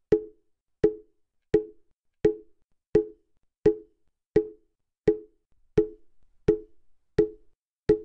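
Mokugyo, the carved wooden fish drum of Buddhist temples, struck at a slow, even pace: short wooden knocks about three every two seconds, each dying away quickly.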